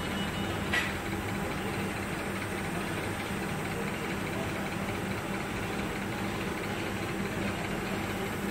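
Steady mechanical hum with an even rushing noise, and a single sharp click about a second in.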